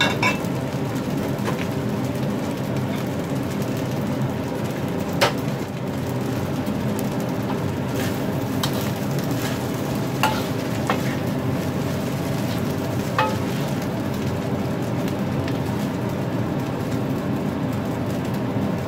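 Egg fried rice frying in a hot wok with a steady sizzle, stirred and scraped with a metal spatula that clicks sharply against the wok a few times.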